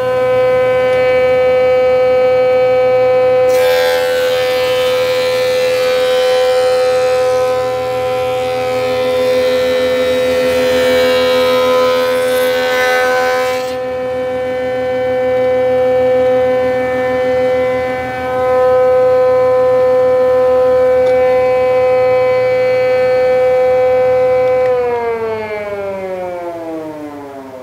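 Thickness planer running with a steady high whine. About four seconds in, a laminated white oak stem piece feeds through and the cutterhead cuts it for about ten seconds with a loud rushing noise. Near the end the machine is switched off and winds down, its pitch falling away.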